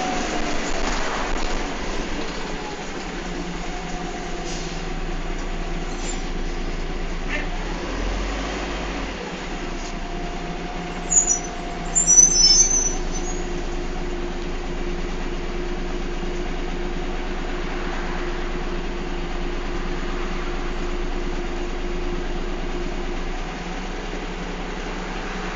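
Inside a moving bus: the engine and drivetrain drone steadily with a whining tone. Short high-pitched squeals come about 11 seconds in and again a second later, the loudest sounds here.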